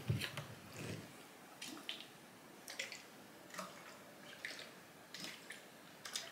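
Faint sloshing of syrup-flavoured soda water inside a capped plastic SodaStream bottle as it is tipped and turned to mix in the syrup, a short soft slosh about once a second.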